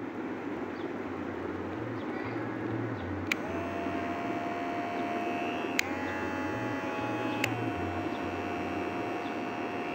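Dingling RF-699 cordless hair clipper with a guide comb fitted, switched on with a click about three seconds in and running with a steady buzzing whine. About two and a half seconds later another click puts it on its faster setting and the pitch goes up. About a second and a half after that a click puts it back on the slower setting.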